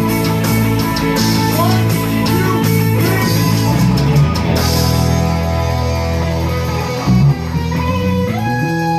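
A live rock band playing together: electric guitars, bass guitar and drums. About five seconds in the drums drop away and held guitar notes ring on.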